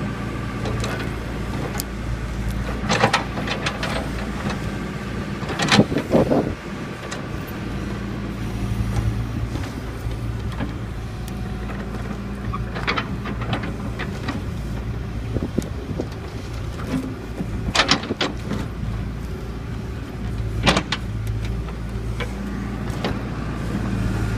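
John Deere backhoe loader's diesel engine running steadily, its note swelling now and then as the hydraulics work. It is broken by several sharp knocks and clanks as the bucket handles heavy ash log sections, the loudest about six seconds in.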